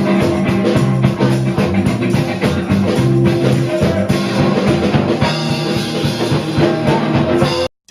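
Rock music with drum kit and guitar, which cuts off suddenly near the end and gives way to quieter music.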